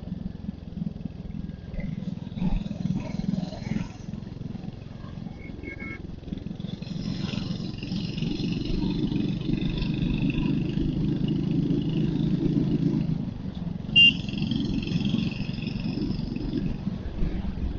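Royal Enfield Hunter 350's single-cylinder engine heard from the saddle while riding, pulling harder for several seconds and then easing off. A short, loud horn beep comes about three-quarters of the way through.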